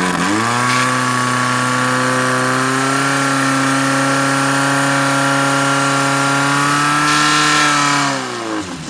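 Portable fire pump's engine revved up sharply to full throttle, holding a high steady pitch while it drives water through the attack hoses to the jets. About eight seconds in it is throttled back and the pitch falls.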